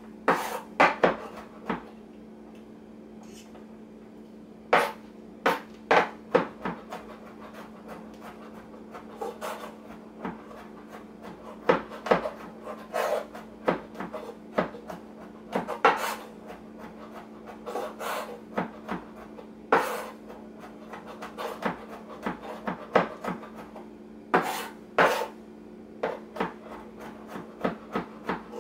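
Kitchen knife chopping fresh garlic cloves on a cutting board: irregular sharp taps in short clusters with pauses between. A steady low hum runs underneath.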